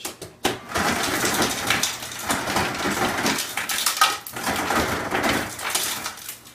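Refrigerator door ice dispenser dropping ice into a metal cocktail shaker: a dense clattering rattle of ice on metal that starts under a second in and runs for about five seconds, with brief dips.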